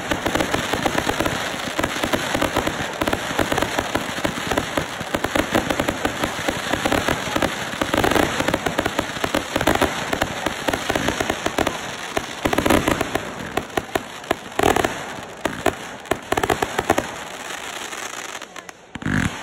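Consumer fireworks going off: a dense, continuous crackle of rapid pops with louder bangs now and then, thinning out near the end.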